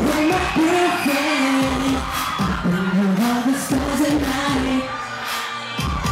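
Pop song performed live through a concert sound system: a singer's melody over a steady, punchy beat.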